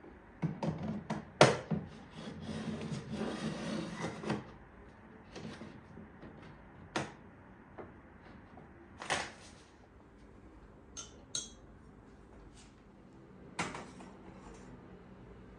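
Household handling sounds: a few seconds of rubbing and scraping, then several separate light knocks and clicks as objects are set down or moved.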